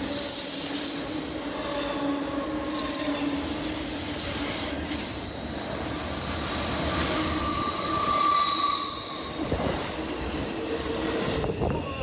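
Train running on rails with its wheels squealing: several high, shifting squeal tones that swell and fade over a steady running noise.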